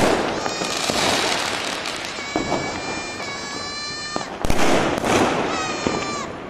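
Diwali fireworks going off: continuous crackling with several sharp bangs. Two long, steady whistles, each dropping in pitch as it ends, rise over the crackle.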